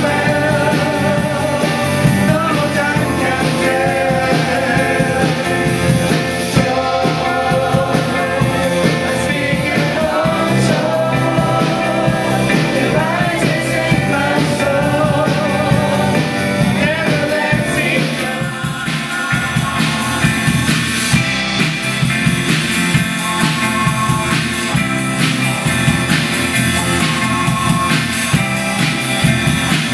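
Live worship band playing with electric guitars, bass, keyboards and drums while a group of singers sings a Christmas praise song. About two-thirds of the way through, the singing drops back and the band carries on.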